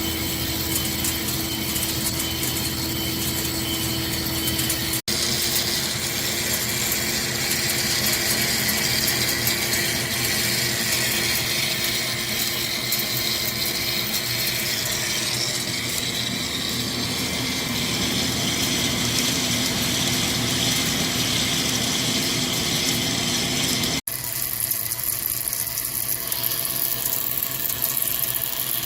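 CNC lathe running while turning a metal pinion shaft: a steady machine hum with cutting and gear noise. The sound drops out for an instant twice, about 5 and 24 seconds in.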